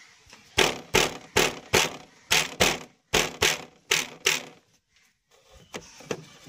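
Loose tail light assembly on a Bajaj Pulsar knocking against its mount, about ten sharp knocks, several in quick pairs, then faint clicks near the end. The knocking is the sign of broken mounting clamps on the light.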